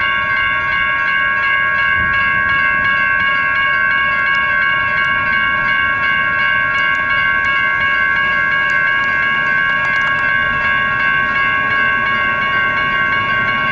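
Railroad grade-crossing warning bells ringing continuously, several electronic bells (a Safetran Type 2 E-Bell and NEG E-Bells) overlapping in a steady, rapid ding: the crossing is activated for an approaching train.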